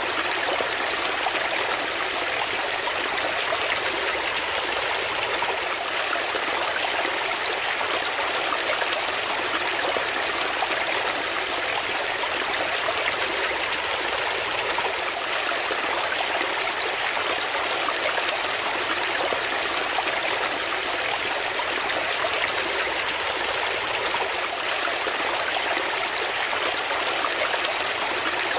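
Shallow brook running and splashing over rocks in a small cascade, a steady rushing babble with no change.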